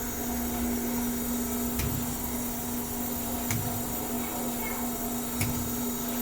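Machinery running with a steady hum and a short clunk repeating about every two seconds.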